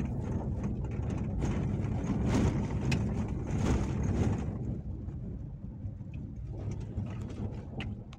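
Inside the cab of a Nissan Navara pickup rolling slowly over a gravel road: a steady low rumble of engine and tyres, with louder noise from the tyres on the loose surface for a few seconds. The sound settles quieter a little after halfway.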